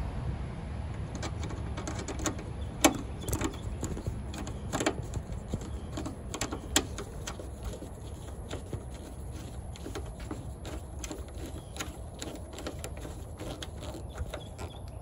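Irregular light clicks and taps of the plastic headlight housing being worked into place against the car body, with two louder knocks about three and seven seconds in, over a steady low rumble.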